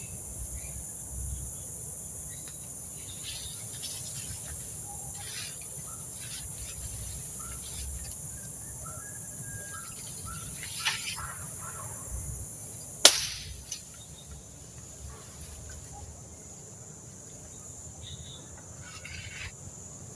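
Steady high-pitched chorus of crickets and other insects, with scattered short faint calls. About thirteen seconds in there is a single sharp snap or click, the loudest sound.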